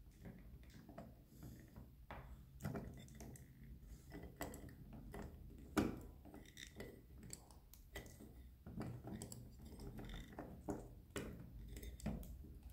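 Faint clicks, knocks and light scraping of a diecast metal model wheel loader being handled on a wooden table as its bucket and lift arms are worked by hand. One sharper knock comes about six seconds in.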